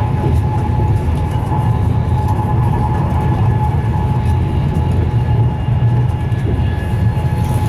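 Cabin sound of a Class 390 Pendolino electric train running at speed: a steady low rumble of the wheels on the track, with a steady high whine over it.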